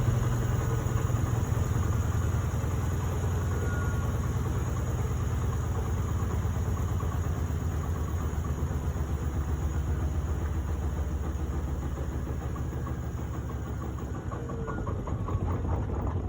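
Beko washing machine running with a steady low mechanical hum that slowly fades towards the end.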